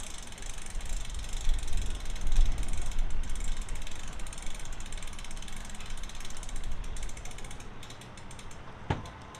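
Outboard motor of a passing center-console boat running at low speed: a fast rattling tick over a low rumble that swells about two seconds in and eases off near the end. A single sharp click near the end.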